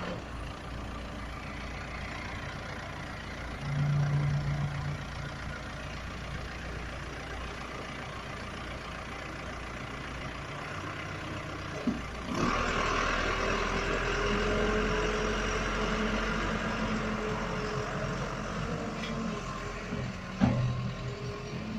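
Backhoe engine running steadily, getting louder and working harder about twelve seconds in, its pitch rising slowly.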